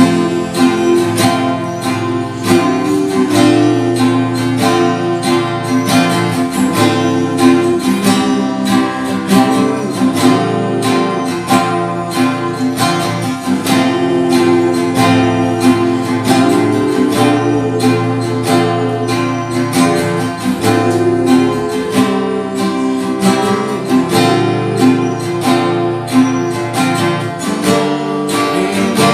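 Instrumental break of a pop song: steadily strummed and picked acoustic guitar with bass and backing instruments, and no vocals.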